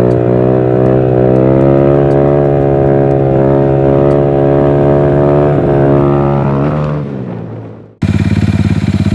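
Honda motorcycle engine held at steady high revs during a wheelie, its pitch dipping and rising briefly near the end before it fades out. About eight seconds in, a loud, rapidly pulsing buzz cuts in abruptly.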